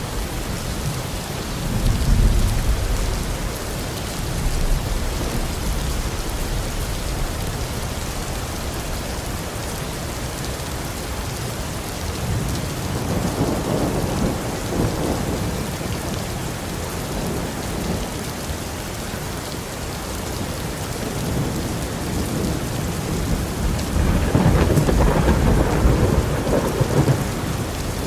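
Heavy rain falling steadily, with thunder rumbling through it: a low rumble about two seconds in, another around the middle, and a longer, louder roll near the end.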